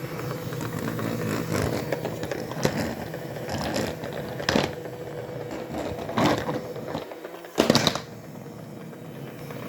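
Tiny robot vacuum cleaner running with a steady motor whine and irregular clicks and knocks. The loudest knock comes about three-quarters of the way through, and the sound is quieter after it.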